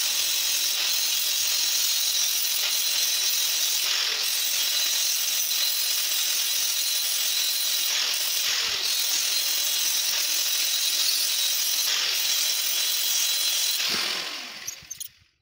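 Handheld angle grinder running steadily with its disc against an old rusty steel hinge, grinding off the rust. It is switched off near the end and winds down.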